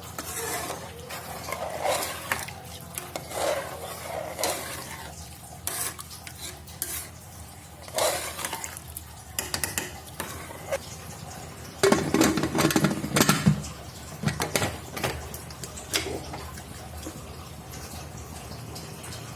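Metal utensil clinking and scraping against a cooking pot in irregular knocks, with the loudest clatter about twelve seconds in.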